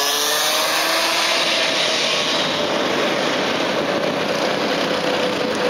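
Go-kart engine running hard at speed as the kart goes past and away, a steady high engine note that drifts slowly down in pitch.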